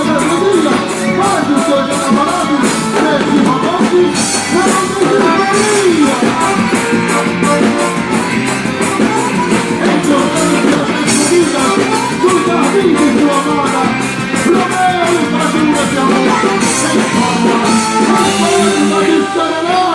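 Festive dance music with a fast, steady percussion beat, played loud for a quadrilha junina dance.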